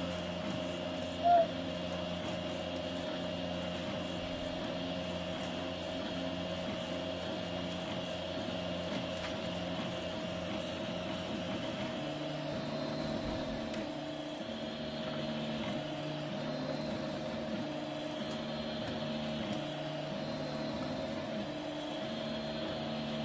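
FDM 3D printer at work: its stepper motors whir in stepped, shifting tones as the print head moves over the bed, over a steady fan hum. The motor tones change pattern about halfway through, and a brief loud chirp sounds about a second in.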